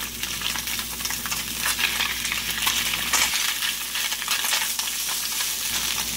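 Redtail surf perch fillets frying in hot olive oil in a nonstick skillet: a steady sizzle with fine crackling.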